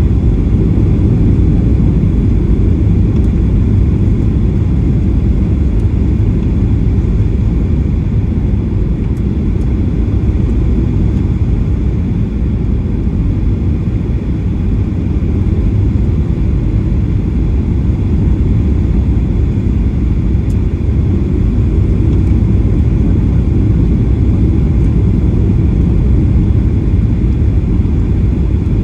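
Cabin noise inside a Boeing 737-800: a steady, loud low rumble of the engines and airflow.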